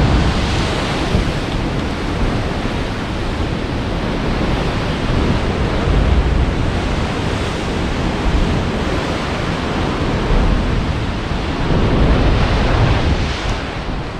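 Sea waves washing into a rocky natural pool in a sea cave: a loud, continuous rushing that swells and ebbs, with low rumbling wind on the microphone.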